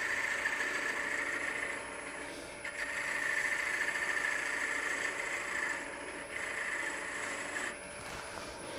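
Turning tool cutting a spinning mahogany spindle on a wood lathe: a steady hiss of the cut in three passes with short breaks, over the hum of the running lathe, as the end of a finial is trimmed back for fit.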